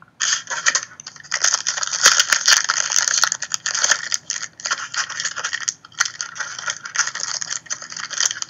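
Foil trading-card pack being handled and torn open: a continuous crinkling crackle of the wrapper, full of small sharp clicks, starting just after the pack is picked up.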